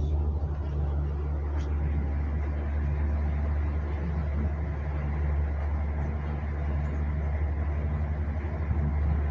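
Tour boat's motor running steadily: a constant low hum with a few steady low tones under a rushing haze.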